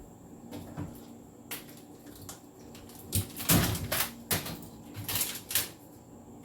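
Food containers and jars being handled and set down while a refrigerator shelf is cleared out: a series of knocks and clatters, a few light ones at first, then louder and closer together from about three seconds in.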